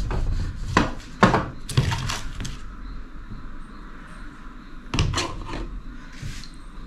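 Sharp knocks and clatter of a rolling pin and a spoon on a glass-topped table while dough is rolled out and potato filling is spooned onto it. The knocks come in a quick cluster over the first couple of seconds and again about five seconds in.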